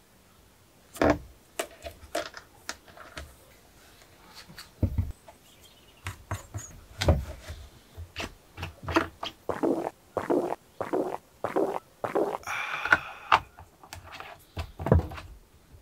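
Hands taking apart a Makita DUC353 18-volt battery chainsaw: irregular clicks, knocks and short scrapes of its plastic housing, sprocket cover, bar and chain being handled and set down.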